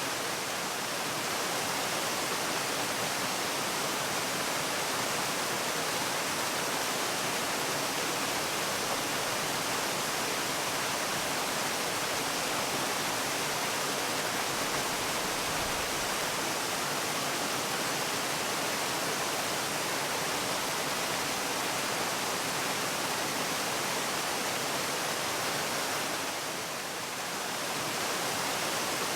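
Waterfall: water falling in a steady, even rush, dipping slightly softer for a moment near the end.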